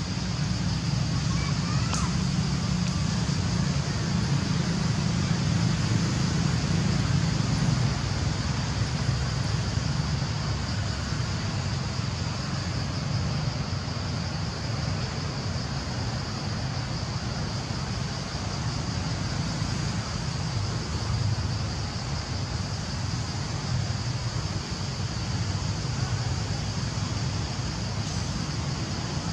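Steady outdoor background noise: a low rumble with a constant high-pitched hiss over it.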